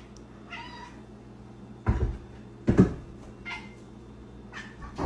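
A cat meowing faintly a few times, with two loud, dull thumps about two seconds in.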